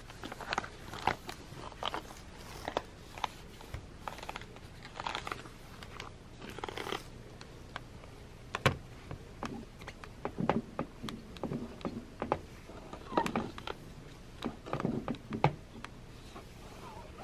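A laptop being wiped down by hand with a cleaning wipe: irregular rubbing and scraping over the screen and keyboard, with a few sharp clicks.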